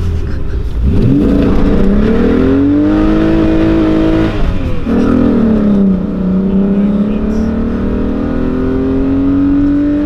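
VW Golf Cabrio's VR6 engine accelerating hard at full throttle, heard from the open-top cabin. The revs climb steeply for about three seconds, drop with a gear change about four seconds in, then climb again more slowly in the next gear.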